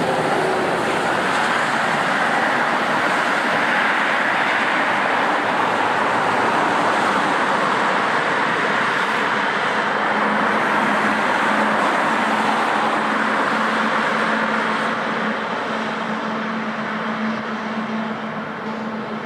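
Jet airliner engines running, a steady loud rushing roar. A steady hum joins about halfway through, and the sound eases slightly near the end.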